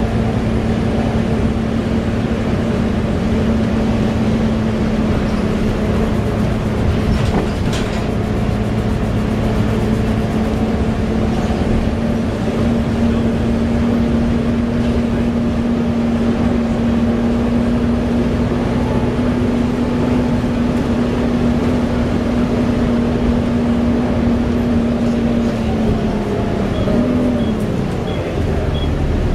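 Volvo B7TL bus's engine and loud, hoover-like cooling fan droning steadily at motorway speed. The steady tone falls away about 26 seconds in.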